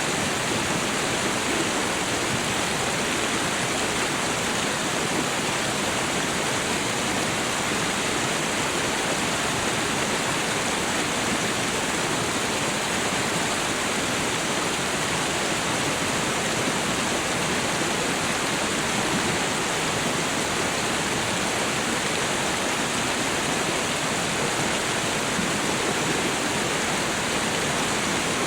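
Winter thaw meltwater running in a stream and over a waterfall: a steady, even rush of water that does not change.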